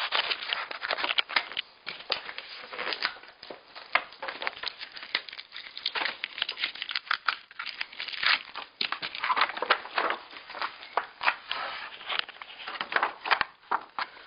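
Plastic packaging crinkling and tearing as it is handled and pulled off by hand, in a dense, irregular run of sharp crackles.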